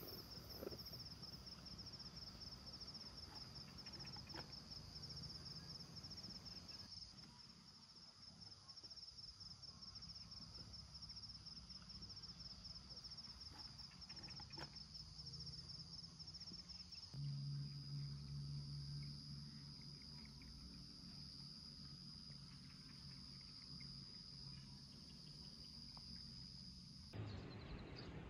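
Faint night insects chirring steadily, a high rapid trill, over a low even background hum. The insect sound fades out near the end.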